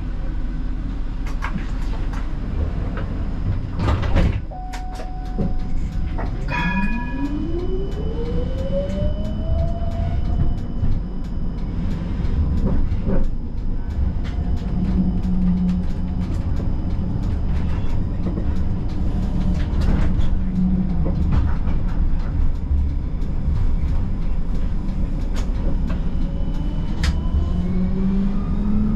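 Siemens Combino tram running on rails, heard from the driver's cab: a steady rumble with frequent clicks from the wheels on the track. Its electric drive gives a whine that rises steadily in pitch as the tram accelerates, about six to ten seconds in and again near the end. A few short electronic tones sound just before the first whine.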